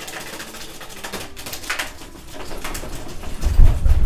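A hand rubbing and wiping a small whiteboard in quick back-and-forth strokes, making short squeaky scrapes. Near the end, heavy low thumps come in as the rubbing gets harder.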